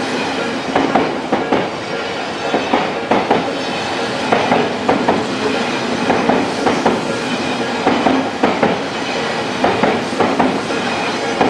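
Odakyu 8000 series electric train passing over a level crossing as it pulls away from the station, its wheels clacking over the rail joints in a steady run of repeated knocks. The crossing's electronic warning bell rings along with it.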